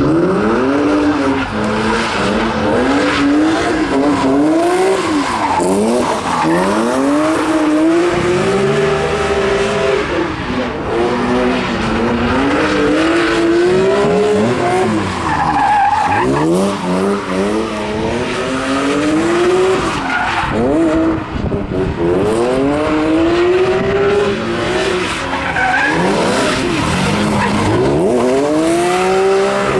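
BMW E36 drift cars' engines revving hard, rising and falling over and over, with tyres squealing and skidding as the cars slide.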